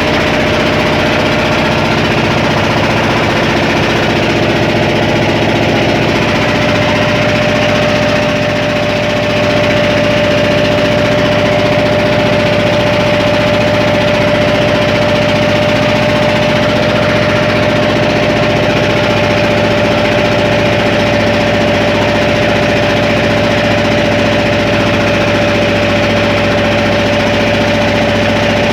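Boat engine running steadily at a constant speed, a dense, even hum with one strong steady tone.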